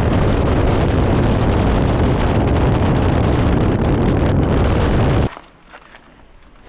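Loud wind buffeting the microphone, a dense rush with heavy low rumble that cuts off suddenly about five seconds in.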